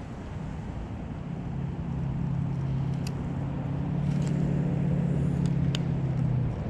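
Road traffic: a passing vehicle's engine hum grows louder over a few seconds and cuts off near the end, over a steady background rush.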